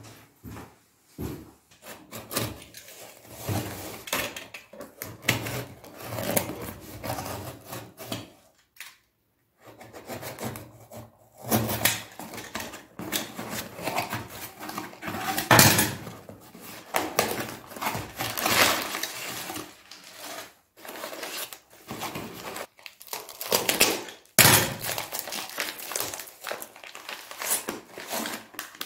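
A cardboard parcel being unboxed by hand: a utility knife slitting the tape and cardboard, flaps and crumpled newspaper packing rustling and tearing, and plastic parts bags crinkling. The sounds come in irregular bursts of scraping and rustling, with a few sharper knocks.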